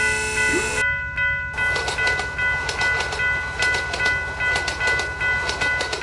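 Japanese railroad crossing alarm ringing its repeated clang, about two strikes a second, over the low rumble of a passing train. The rapid clicking of the train's wheels sets in about a second and a half in.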